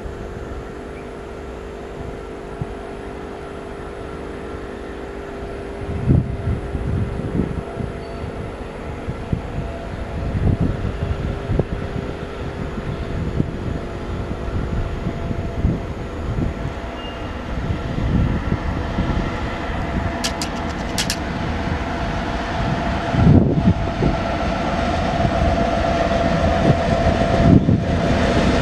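Class 232 'Ludmilla' diesel locomotive with its Kolomna 16-cylinder engine, hauling a train of tank wagons, approaching and passing: a steady engine drone with the rumble of wheels on rails, growing steadily louder as it nears.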